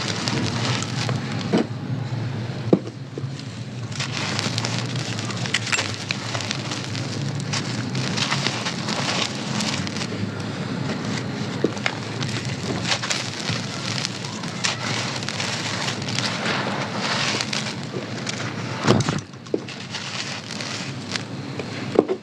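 Dry sand-cement and clay crumbles being crushed: a dense, continuous crunching and crackling with many small sharp cracks. A louder crunch comes near the end.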